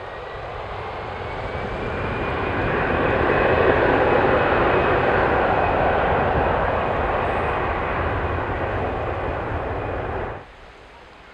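Austrian Airlines Airbus A320's twin jet engines at takeoff power during the takeoff roll: a steady jet noise with a thin high whine. It builds to its loudest about four seconds in, eases slightly, and cuts off suddenly near the end.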